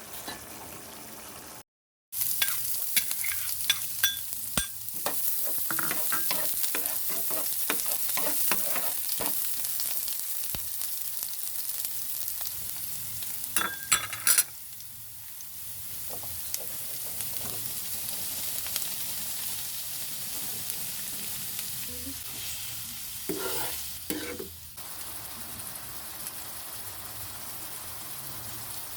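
Food sizzling as it fries in a pan while being stirred, the utensil clicking and scraping against the pan. A brief cut to silence about two seconds in, and the sizzle gets quieter about halfway through.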